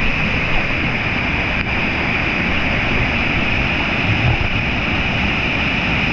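Small waterfall on a creek, water pouring and splashing in a steady, even rush.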